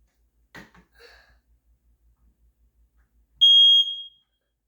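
Smoke-only smoke detector sounding on test: one loud, high-pitched beep starts about three and a half seconds in and fades after under a second.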